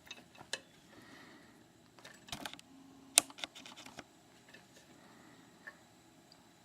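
Faint, scattered metallic clicks and scrapes of a dimple pick and tension bar working in the keyway of a Mauer Elite 1 dimple padlock, with a small cluster of clicks a little past two seconds and one sharper click about three seconds in.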